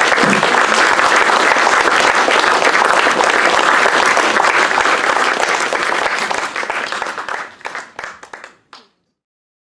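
Audience applauding, a dense steady clatter of many hands that thins out about seven seconds in to a few last claps before cutting off.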